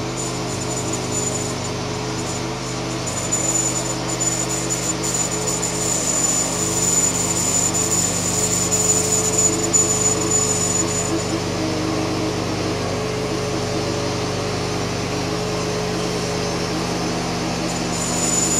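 Homemade bandsaw mill running steadily, its engine droning as the blade cuts lengthwise through a large spruce log. A thin high whine sits over the engine and drops away for a few seconds in the middle before coming back near the end.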